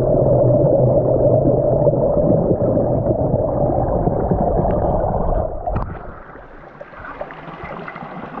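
Stream water heard underwater through a camera housing: a loud, muffled, dense rush and gurgle. About two thirds of the way through it drops and turns thinner and brighter, as the stream is heard in open air.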